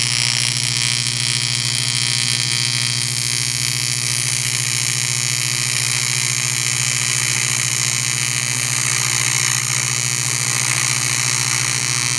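TIG welding arc, with the torch fed by hand with filler rod along a joint on a polished metal tube. It gives a steady, unbroken buzz with a hiss over it.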